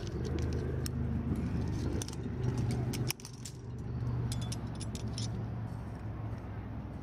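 Metal trad-climbing gear clinking and jangling: carabiners and cams knocking together on a gear sling as a cam is placed in a crack and clipped, in many short sharp clicks over a steady low rumble.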